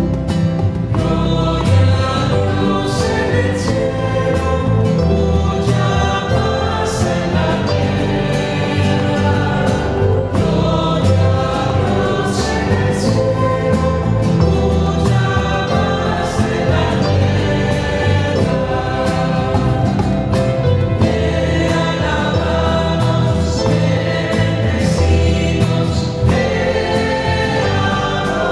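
Church choir singing a Spanish-language worship song with keyboard accompaniment.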